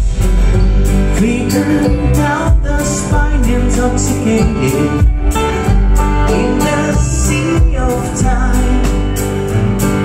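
Live bluegrass-style band playing: acoustic guitar, mandolin, upright double bass and drum kit, with a man singing lead.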